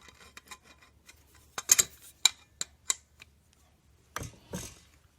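Sharp metallic clicks and ticks of a hand tool working a stubborn bolt: a quick run of four or five clicks roughly a third of a second apart in the middle, then a couple of softer knocks near the end.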